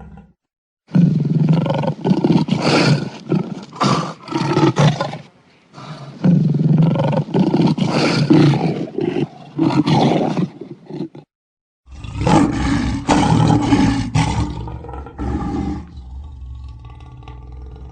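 Lions roaring: a run of loud, deep roars and grunts in several separate recordings, broken by short silences about a second in and about eleven seconds in.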